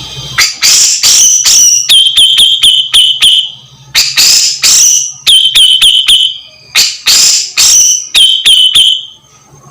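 Grey-cheeked bulbul (cucak jenggot) calling loudly in three bouts. Each bout opens with a harsh burst and runs into a quick string of short repeated notes, about five a second.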